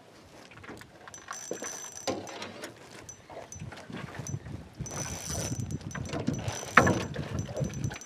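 Fishing reel clicking irregularly as line is worked in on a hooked fish, the handling noise building toward the end.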